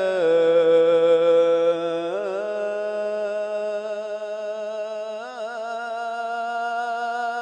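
Solo male voice singing an Islamic ibtihal, holding one long melismatic note on the 'yaa' of 'ya rabb', with ornamental turns about two seconds in and again about five seconds in. It is loudest in the first two seconds.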